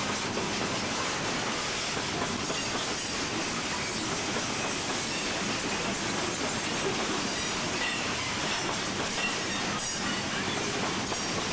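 Loaded coal hopper cars of a freight train rolling past on steel wheels: a steady rolling rumble with occasional clicks and a few brief, faint wheel squeals.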